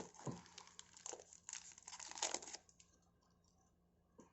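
A trading-card pack wrapper being crinkled and torn open, faint and scratchy for about two and a half seconds, then near silence.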